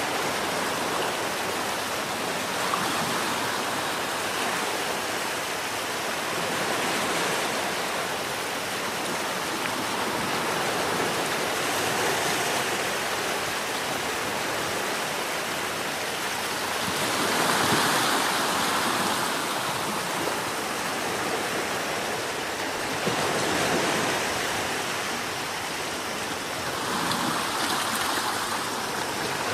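Gentle sea surf washing onto the shore: a steady rushing hiss that swells every five or six seconds as each wave comes in.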